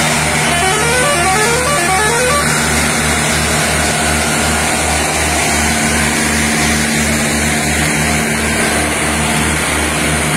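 Diesel tractor engines hauling loaded sugarcane trolleys, with a low, even throb throughout. From about half a second in to about two and a half seconds, a musical horn plays a quick run of rising notes.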